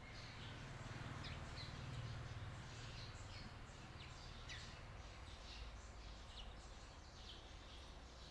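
Small birds chirping in short, quick downward-falling chirps, scattered several at a time, over a faint low hum.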